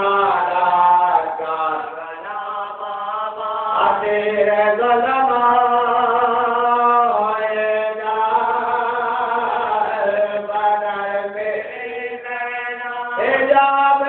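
A solo voice chanting in long, drawn-out melodic phrases, with brief pauses for breath about four seconds in and again near the end.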